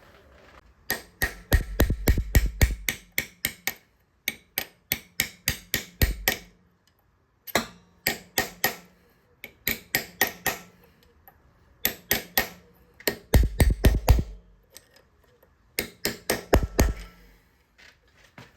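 Background music with a steady, clicking percussion beat and deep bass hits.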